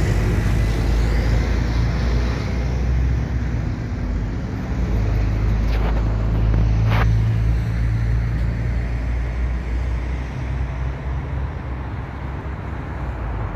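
Steady low rumble of road traffic, with two brief sharper sounds about six and seven seconds in.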